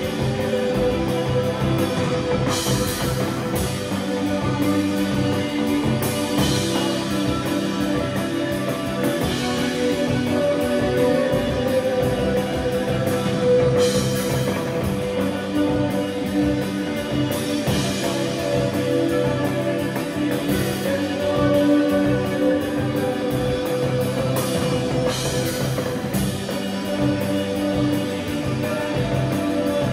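Live rock band playing an instrumental passage: electric guitars holding sustained chords over bass and drum kit, with a cymbal crash every three to four seconds.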